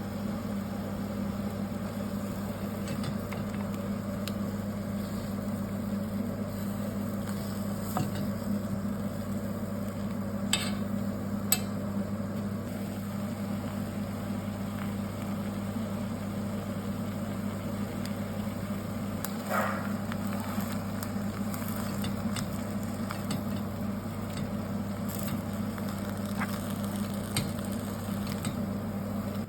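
Food sizzling in a pan while a utensil stirs it, with occasional sharp clinks of the utensil against the pan, two of them close together about ten seconds in. A steady low hum runs underneath.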